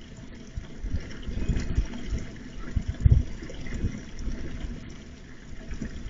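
Low rumbling noise on an outdoor security camera's microphone, swelling and fading irregularly.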